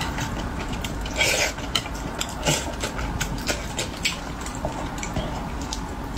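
Close-miked eating sounds: wet chewing and mouth smacks on braised fish, with light clicks and taps of chopsticks against the fish and plate.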